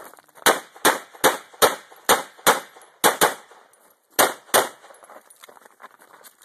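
Handgun fired rapidly, about ten shots in quick pairs over some four seconds, then a lull of faint small noises near the end.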